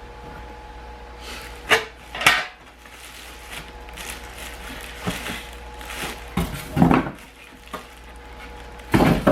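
Knocks and thumps of a boxed air fryer oven and its packaging being handled: two sharp knocks about two seconds in, then heavier thumps later and again near the end.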